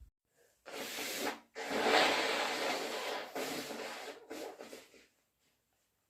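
A person blowing their nose into a tissue to clear nasal congestion from a cat allergy. A short blow comes about a second in, then a longer, louder blow that tapers off over about three seconds in a few rubs and snuffles.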